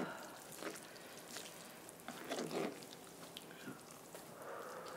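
Chopsticks stirring and lifting instant noodles in a pot of mala broth: soft wet squishing with light clicks of the chopsticks against the pot, a little louder about two and a half seconds in.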